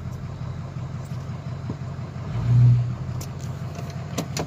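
Pickup truck engine running at low speed, heard from inside the cab, with a steady low drone. About two and a half seconds in, a louder low hum swells for under a second and dies away. A couple of sharp clicks follow near the end.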